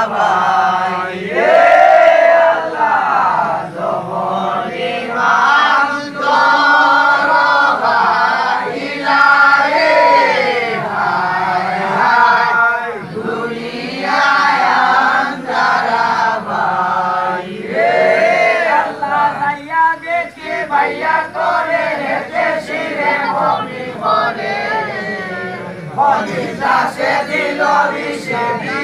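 A large group of voices chanting together in unison, a devotional chant sung by a seated crowd. The melody swoops up and down in repeated phrases every few seconds.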